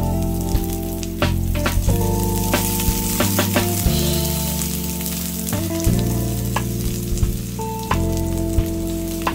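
Sliced onions sizzling in hot oil in a nonstick frying pan, stirred with a spatula that knocks and scrapes against the pan at irregular moments.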